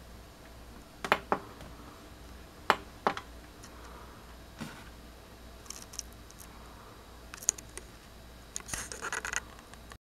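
Plastic push-buttons on a humidifier's control panel clicking as they are pressed: several sharp single clicks, then a rougher patch of scratching and rubbing near the end.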